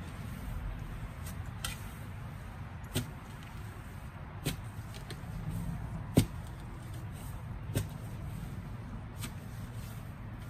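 Garden hand tool striking into soil and weeds, six sharp knocks about every second and a half, the loudest about six seconds in, over a steady low rumble.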